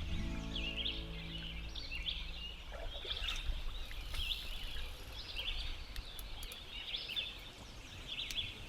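Small birds chirping and singing in short high calls, about one burst a second. A music bed fades out over the first couple of seconds.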